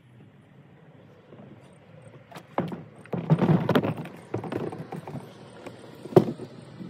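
Camping gear and a kayak being handled: knocks, rustling and clatter, busiest a few seconds in, then a single sharp knock near the end.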